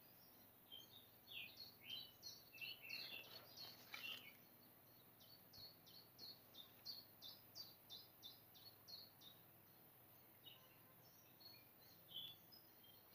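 Faint birdsong: small birds chirping, one of them repeating a short high note about three times a second through the middle.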